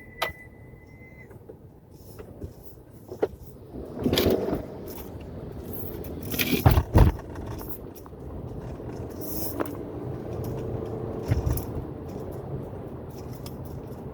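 Subaru Forester with Hawk Performance Street Race brake pads in city driving: a steady high-pitched brake squeal that cuts off about a second in, then the drone of the engine with its CVT and tyre rumble, broken by a few sharp clicks and loud clunks.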